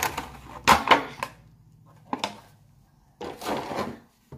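Clear plastic wrapper crinkling in a few short bouts as it is pulled off a toy egg, loudest about a second in, with a longer rustle near the end.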